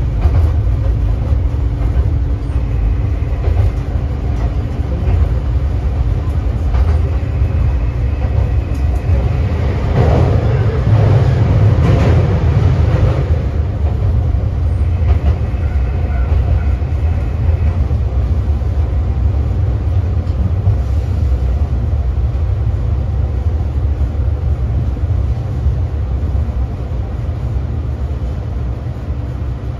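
KiHa 3710 diesel railcar running along the line, heard from inside the car: a steady low rumble of diesel engine and wheels on rail with a constant hum. The noise swells louder for a few seconds about ten seconds in, and eases slightly toward the end.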